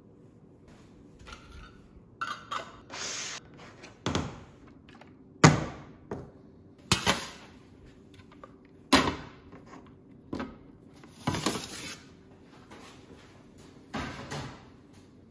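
Glass jars and their plastic lids knocking and clinking against a stainless steel counter as the jars are capped, set down and picked up: a string of about nine separate knocks, the loudest about five seconds in, with a couple of short scrapes.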